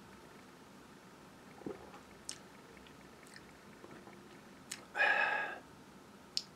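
A man tasting beer after a sip: a few faint lip smacks and tongue clicks, and about five seconds in a short, louder voiced exhale as he reacts to the taste.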